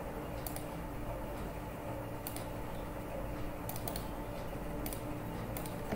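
A handful of separate computer keyboard keystrokes and mouse clicks, spaced about a second apart, over a low steady background hum.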